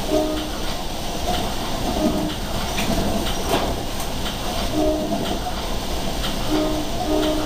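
Steady rumble inside a moving commuter-rail passenger coach, with the wheels clicking over rail joints in pairs every couple of seconds.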